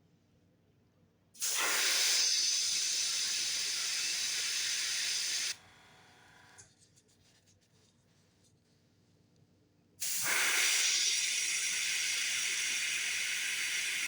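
An airbrush spraying paint in two steady hissing passes of about four seconds each, one starting about a second and a half in and the other about ten seconds in, each cut off sharply.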